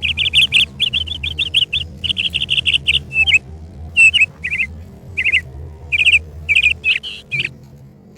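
A bird chirping loudly in quick runs of short notes, then in separate chirps that stop near the end, over a low steady hum.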